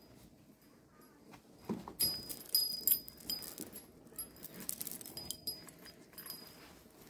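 A newborn baby whimpering softly in a wooden cradle while the cradle is handled and rocked. From about two seconds in, small ornaments on the cradle cover jingle and click.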